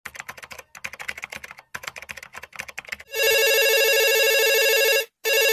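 Typing sound effect, rapid keyboard clicks in three quick runs, followed by a phone ringing: a warbling electronic ring that breaks off briefly about five seconds in and then resumes.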